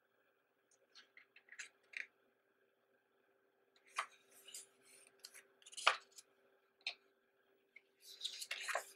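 Paper pages of a program book being handled and turned: scattered short rustles and taps, the loudest about six seconds in, then a longer rustle as a page is turned near the end.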